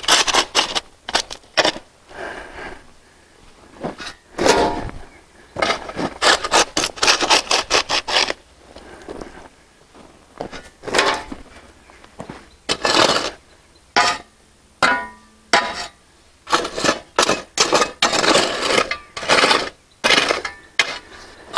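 A shovel scraping and scooping crushed granite gravel in repeated, irregular strokes, with gritty crunches and clinks, as about an inch of the paver base is skimmed off.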